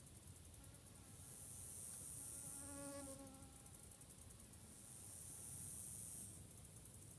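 High-pitched insect buzzing that swells up and fades twice, each swell about two seconds long. Near the middle there is a brief lower pitched tone with overtones.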